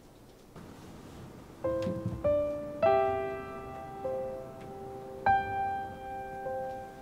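Slow, soft piano music: a few single notes and chords that ring out and fade, coming in about a second and a half in after near-quiet room tone.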